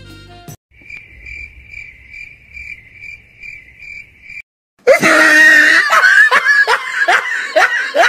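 Cricket chirping, added as a sound effect, a steady chirp about three times a second after brief jazz music cuts off. About five seconds in, loud laughter breaks out: repeated 'ha' bursts, each falling in pitch.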